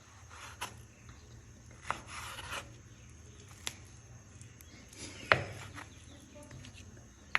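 Kitchen prep handling: a few separate knocks and clicks on a hard surface, with a short scraping rub about two seconds in and the loudest knock a little past five seconds.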